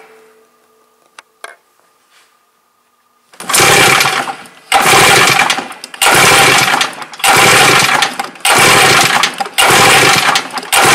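After a few near-quiet seconds with a faint hum and a click or two, a Polaris 600 XLT three-cylinder two-stroke engine is turned over without firing. It goes in about six cranking strokes of roughly a second each with short gaps, during a compression test of the PTO-side cylinder, which reads about 135 psi.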